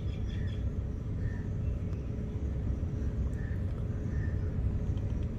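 Steady low rumble of background noise with a faint constant hum.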